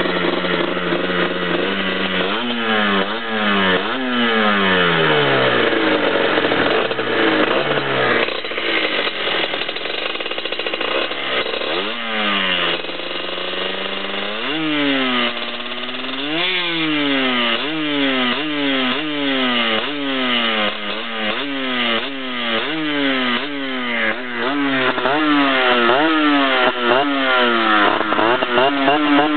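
Yamaha DT 50 two-stroke engine with an aftermarket V6 exhaust, revved over and over in short throttle blips that rise and fall in pitch. After about fifteen seconds the blips settle into a steady rhythm of roughly one a second.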